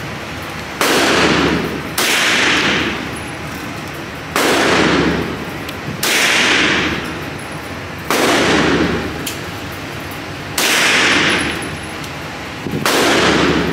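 Seven 9mm pistol shots fired slowly, one every one to two and a half seconds, each followed by a long echoing decay.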